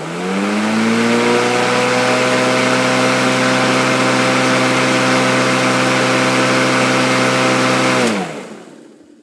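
Black & Decker 12-volt cordless electric lawnmower's motor and blade spinning up with a rising whine, then running steadily and loud, free-running on a table rather than cutting grass. After about eight seconds it is switched off and winds down with a falling pitch.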